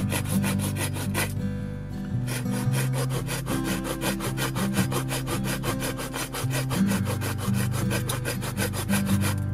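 Small Silky handsaw cutting a notch into a debarked wooden stick: quick, even back-and-forth strokes, about five a second, with a short pause about one to two seconds in. Background music with a steady low bass plays underneath.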